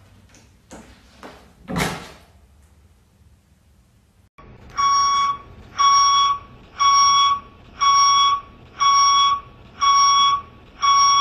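A few knocks, then about four seconds in an electronic alarm starts beeping: one steady tone repeated roughly once a second, about seven beeps.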